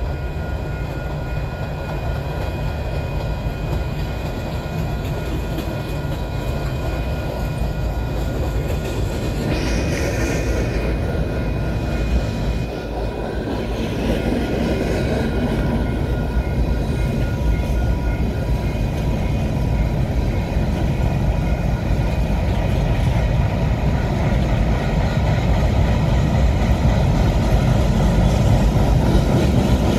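Freight train cars (covered hoppers and boxcars) rolling steadily past, with the continuous rumble and clatter of steel wheels on the rail joints, growing slightly louder toward the end.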